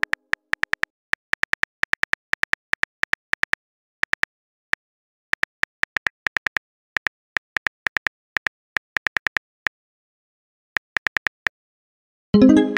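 Phone keyboard typing sound effect: rapid sharp taps in irregular runs of about five or six a second, with a longer pause about two-thirds of the way through. Near the end a short pitched message chime sounds.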